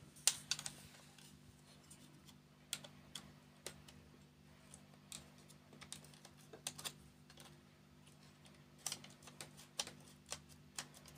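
Irregular light clicks and taps of a screwdriver and fingers working the plastic and metal parts of a laser printer's fuser assembly.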